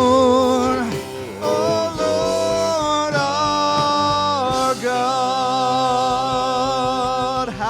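Church worship music: a band playing with voices holding long sung notes that change pitch every second or so.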